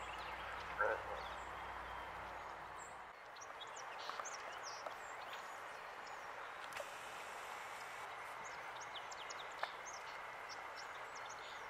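Riverbank ambience: a steady rushing hiss with many small birds chirping. There is a brief distant voice about a second in and a single sharp click late on.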